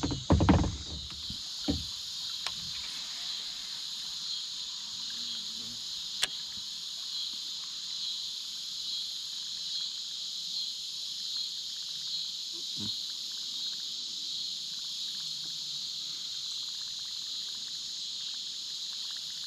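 Steady chorus of crickets and other insects, a continuous high-pitched trill, broken by a few faint isolated clicks.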